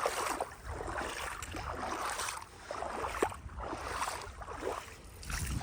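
Boots wading through floodwater, sloshing and splashing with each step, about one step a second.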